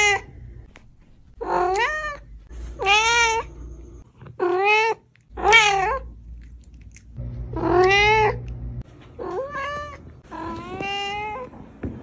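A domestic cat meowing over and over, about seven loud, drawn-out meows spaced a second or two apart.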